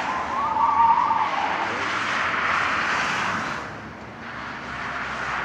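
Tyres of a Škoda Felicia 1.3 (50 kW) on stock Matador 165/70 R13 tyres squealing briefly as the car corners through a tight slalom turn, loudest about a second in, with the engine running under load throughout; the sound dips about four seconds in.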